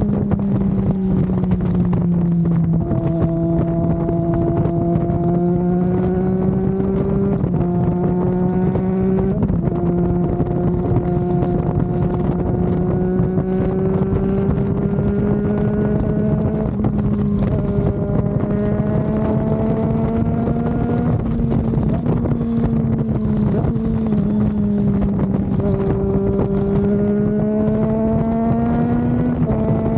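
Triumph Daytona 660's inline three-cylinder engine running steadily under way, its pitch drifting slowly and changing in steps several times, with wind noise.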